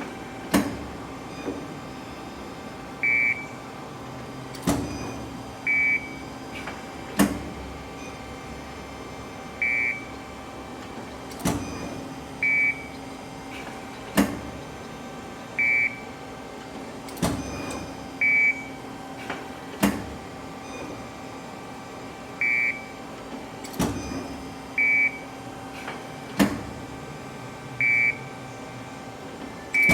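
Amada RG-80S hydraulic press brake running: a steady hydraulic pump hum, with a sharp clunk every few seconds as the machine cycles and short electronic beeps in between.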